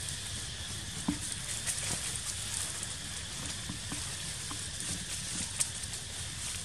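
Steady outdoor hiss with scattered small crackles and clicks of dry leaf litter being disturbed as macaques shift and handle a mango.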